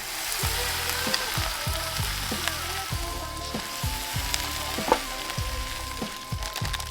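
Food sizzling on a hot cooking surface, a steady crackling hiss, over background music with a steady beat.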